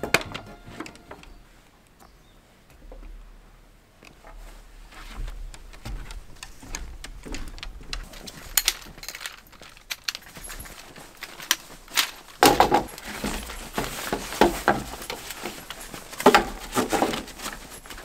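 Knocks, clinks and rattles of camping gear being handled and set up, growing busier and louder about twelve seconds in.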